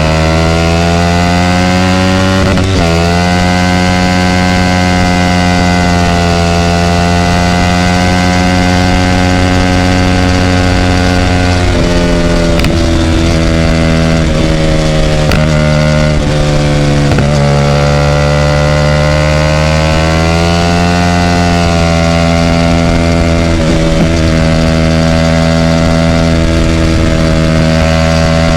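Hyosung GT250R's 250 cc V-twin with a loud aftermarket racing exhaust, running continuously. The engine note rises about two seconds in, then drops and climbs back several times as the throttle is eased and opened again.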